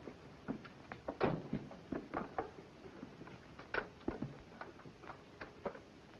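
Faint, irregular clicks and taps, about fifteen short ticks scattered unevenly over several seconds.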